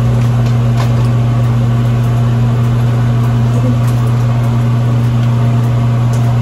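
A loud, steady electrical motor hum from a kitchen appliance, such as a fan, with a few light clicks of a spatula against frying pans.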